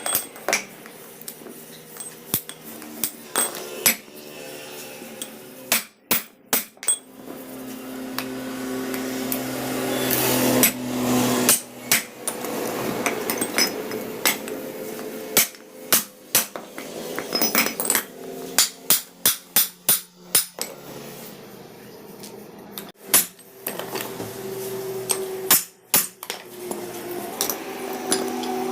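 Hammer blows on steel during bus main shaft repair work: sharp metal strikes, some single and some in quick runs, over a steady machine hum that swells for a few seconds.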